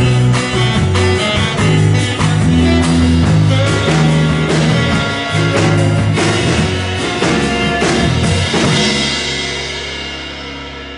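Live band with drum kit, bass, guitar and piano playing the closing bars of a song. About nine seconds in the drums stop and the last chord rings out and fades.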